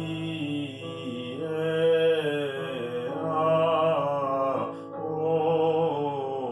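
A man sings a vocal warm-up exercise, holding notes with vibrato in a few stepped phrases, over sustained keyboard accompaniment. It is a placement exercise that keeps the voice forward, away from the throat, modelled on the 'i' vowel.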